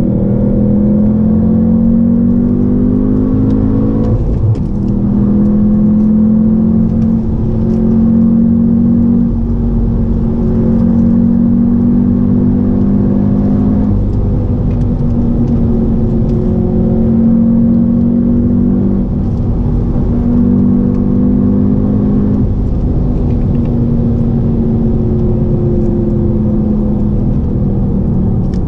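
2016 Audi TTS's turbocharged 2.0-litre four-cylinder engine running under way, its pitch climbing slowly and holding steady, with brief dips about four seconds in and again near the two-thirds mark.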